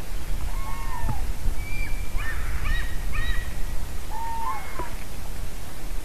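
Common cranes calling: several loud trumpeting calls with falling ends, a pair about half a second in, a denser overlapping cluster in the middle and another pair near the end, over a steady low rushing noise.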